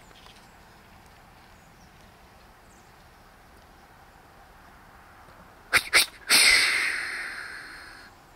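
Two sharp clicks, then a loud, sudden blast of breath that fades away over about a second and a half.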